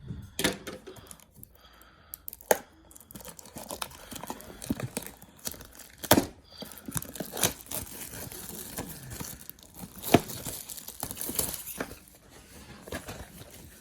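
Packaging on a trading-card box being torn open and crinkled by hand: a long rustling tear with many sharp crackles and snaps.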